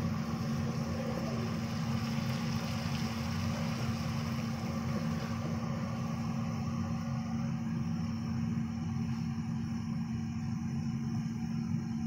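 A steady low mechanical hum, like a motor or fan running. A faint hiss over it dies away about five seconds in.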